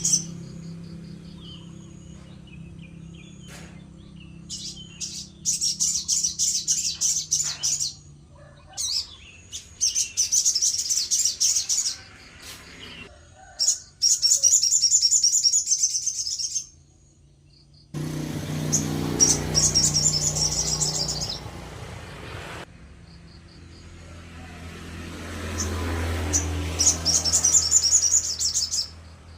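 Sogon songbird singing in repeated bursts of rapid, high trilling notes, each burst a second or three long with short pauses between. A low steady hum sits underneath in the first part.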